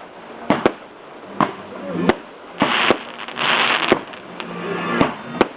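Fireworks going off: a string of sharp, irregularly spaced bangs, with a denser burst of crackle about three seconds in.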